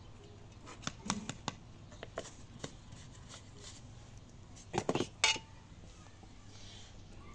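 Metal spoons and stainless steel bowls clinking as they are handled: scattered light clinks, a quick cluster just before five seconds in, then the loudest sharp clink with a brief metallic ring.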